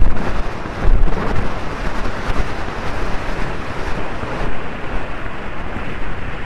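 Heavy wind buffeting on a rider's helmet-camera microphone while galloping a horse cross-country, a steady loud rushing with the strongest blasts right at the start and again about a second in.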